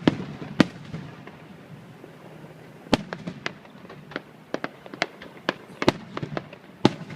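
Aerial fireworks bursting overhead: a string of irregular sharp bangs and cracks, about fifteen in all, the loudest shortly after the start and near the end, with quicker, fainter cracks between.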